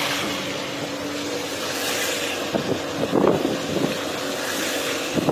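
Car driving over a road covered in hailstones, heard from inside the cabin: a steady mix of engine and tyre noise.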